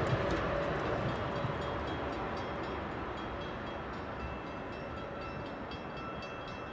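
An Amtrak Acela trainset running away down the track, its rumble dying down steadily as it leaves. A few faint high steady tones come in about a second in.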